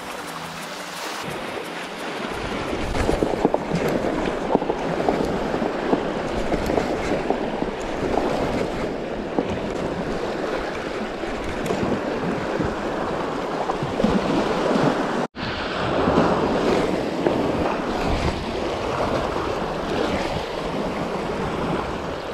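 Sea surf washing against a rocky shoreline, with wind buffeting the microphone. The sound cuts out for a moment about two-thirds of the way through.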